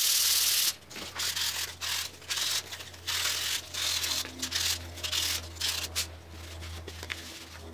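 Cedar coaster rubbed by hand back and forth over a sheet of sandpaper: a long scratchy stroke at the start, then shorter strokes about twice a second that thin out near the end, over a faint low hum.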